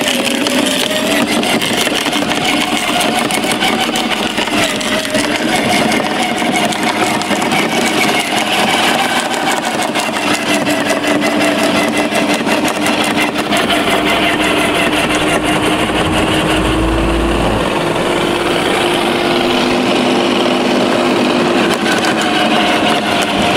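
Electric garden shredder running steadily while leafy branches are fed into its hopper and chipped. Its hum sags slightly in pitch for several seconds in the middle as it takes the load, then recovers.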